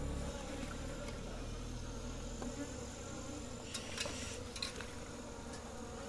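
Honey bees buzzing around an opened hive box, a steady hum, with a few light clicks and rustles a little past halfway as the wooden frame and comb are handled.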